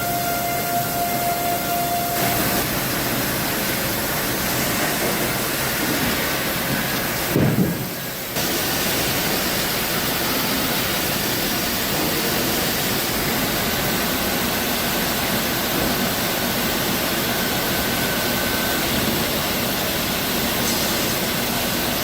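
Steady rushing noise of heavy machinery running, with a short dip about eight seconds in.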